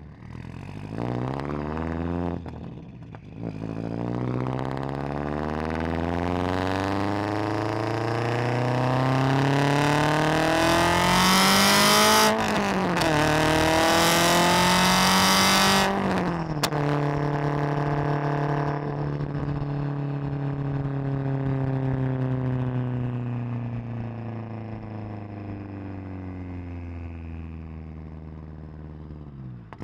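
Turbocharged Subaru STI flat-four heard at the tip of its titanium Tomei Expreme Ti catback exhaust under full throttle. The engine note climbs in pitch, breaks briefly at about three seconds and again just past twelve seconds at gear changes, is loudest between about twelve and sixteen seconds, then drops off the throttle and settles into a steady cruising drone that slowly falls in pitch.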